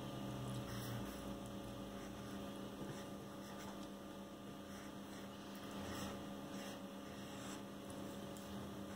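Steady low electrical mains hum, with a few faint strokes of a marker drawing on paper.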